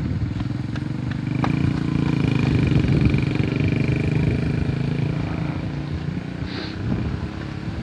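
A motor vehicle's engine running close by, its low pulsing note swelling a little about two to three seconds in and then easing off. A thin, steady high tone sounds over it for a few seconds in the middle.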